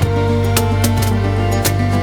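Background music: sustained instrumental notes with a steady percussive beat.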